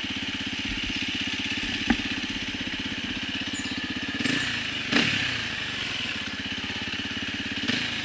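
Husqvarna enduro motorcycle engine idling with a steady, even beat. There is a short swell in engine sound about four to five seconds in and a single sharp click about two seconds in.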